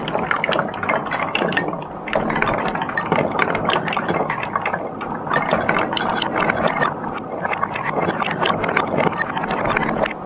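Glass marbles and golf balls rolling down a sloped wooden OSB course: a continuous rolling rumble on the board, dotted with many quick clicks and knocks as the balls strike the wooden blocks and rails.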